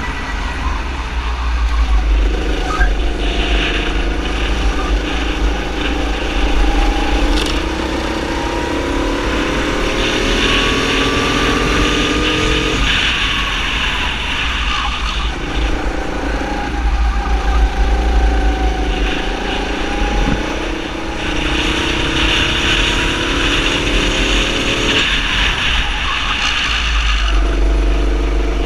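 Racing kart engine heard from onboard, its revs climbing on the straights and dropping back into the corners several times over, with a heavy rumble of wind on the microphone.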